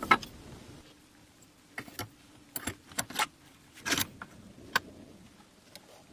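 A string of short, sharp metallic clicks and clinks, about ten spread unevenly over five seconds, the loudest at the very start: small metal parts or tools being handled and set down.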